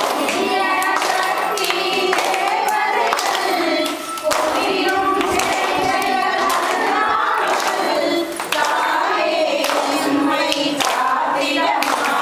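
Group of girls and women singing a Tamil kummi folk song together while clapping their hands in rhythm. The singing comes in lines with a brief break about every four seconds.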